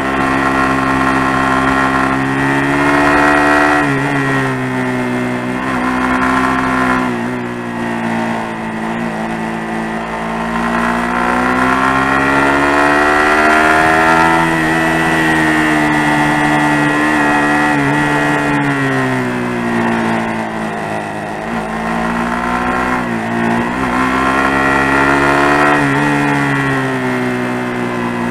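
Suzuki GSX-R150's single-cylinder engine pulling the bike through a series of mountain-road bends, its pitch rising and falling again and again as the rider works the throttle. A few short dips in revs come between the pulls.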